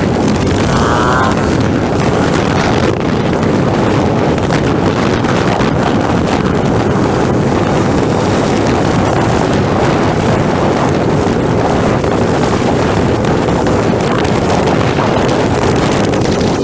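Heavy wind rush on a motorcycle-mounted camera over the AJP PR7's single-cylinder engine running at road speed, with the engine briefly rising in pitch about a second in.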